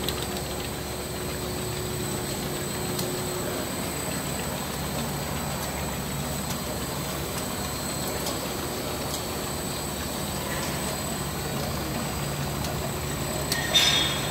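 IMA Farmomac F570 rotary piston filler and capper running: a steady mechanical hum with faint clicks now and then, and a brief louder clatter near the end.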